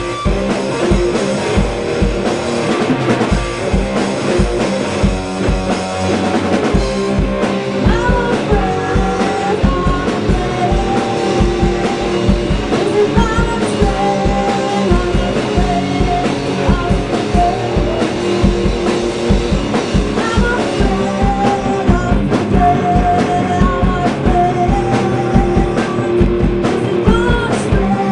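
A two-piece rock band playing live: electric guitar through an amp stack and a drum kit keeping a steady beat, with sung vocals coming in about eight seconds in.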